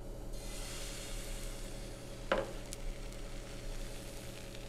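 Butter-greased frying pan sizzling steadily as a thin crepe of batter cooks in it, with one short louder sound about two seconds in.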